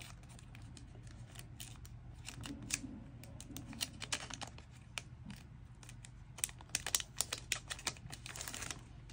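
Hands opening a sealed photocard packet: light crinkling of the plastic wrap and short clicks and ticks of card and packaging being handled, busiest in the second half.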